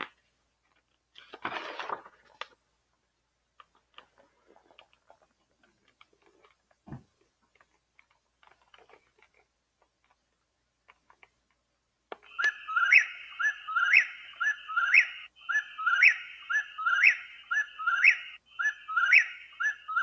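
A few rustles and small clicks from handling the book and its player, then, about twelve seconds in, a recorded whip-poor-will begins singing its song over and over, each 'whip-poor-will' phrase ending on a rising note, with crickets chirring in the recording behind it.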